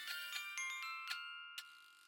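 Background music of bell-like mallet tones, the notes ringing on and slowly fading, with a few sharp ticks.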